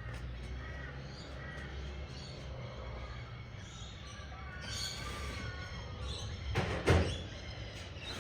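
Birds calling in short chirps over a low steady hum, with one loud clunk about seven seconds in.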